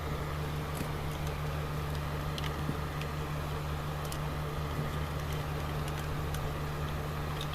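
Steady low hum with a few faint small clicks.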